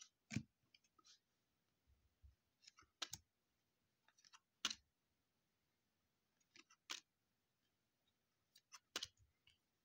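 2020 Topps Series 2 baseball cards being handled and flipped through one at a time: a sharp card click or snap about every two seconds, with fainter ticks and rustles between.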